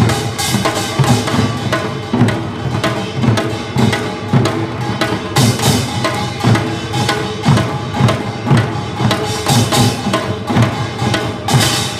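Korean traditional percussion ensemble of janggu hourglass drums and buk barrel drums playing a fast, steady driving rhythm, several strokes a second. Sustained pitched tones ring above the drumming.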